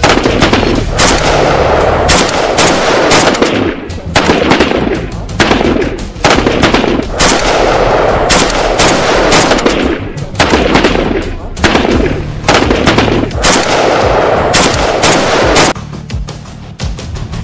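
Rapid, continuous battle gunfire of rifle and machine-gun shots, shot after shot, over dramatic background music. The shooting stops about two seconds before the end, leaving only the music.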